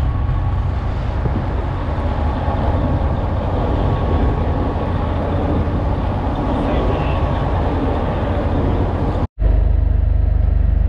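Detroit Diesel Series 60 inline-six engine of an aluminium fishing boat running under way, with water rushing along the hull. After a sudden cut about nine seconds in, a steady, heavier engine drone continues.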